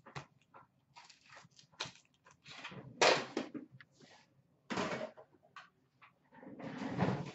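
Hockey card packs and a metal card tin being handled on a glass counter: a run of short rustles and light knocks, with louder bursts about three, five and seven seconds in.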